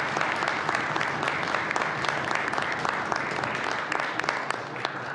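Members of a legislative chamber applauding: a dense patter of many hands clapping that dies away near the end.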